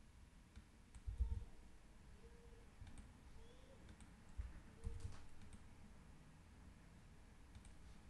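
Faint, scattered clicks of a computer mouse and keyboard, with a few soft low thumps on the desk, the loudest about a second in and again around the middle.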